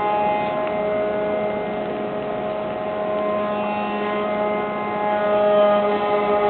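Steady mechanical drone of several held tones, typical of the Big Chute marine railway carriage's drive machinery running as it hauls boats. It grows a little louder about five seconds in.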